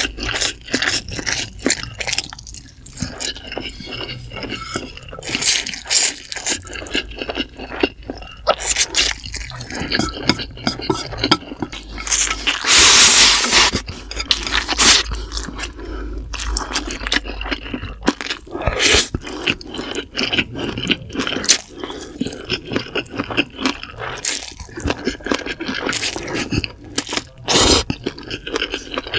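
Close-miked eating sounds of Indomie mi goreng noodles: wet slurping and chewing with many small smacking clicks, and one longer, louder slurp about halfway through as the bowl is raised to the mouth.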